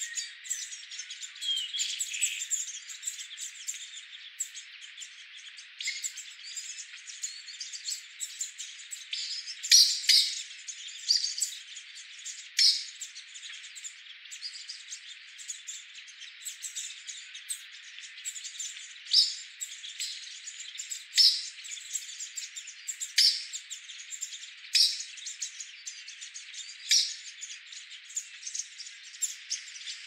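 Wild birds chirping in short, sharp calls every couple of seconds over a steady high hiss of forest ambience.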